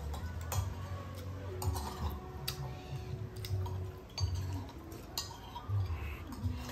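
Metal spoons clinking and scraping against ceramic soup bowls while eating, with a few sharp clinks spread through.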